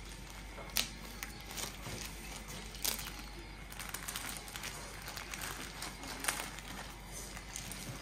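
Clear plastic bag crinkling and rustling as hands handle a folded jersey inside it and start pulling it out, with a few sharper crackles.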